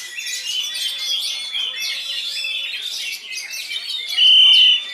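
Dense, fast chirping and trilling of songbirds, led by an oriental magpie-robin (kacer) in full song. Near the end a loud, steady, high whistled note holds for about half a second.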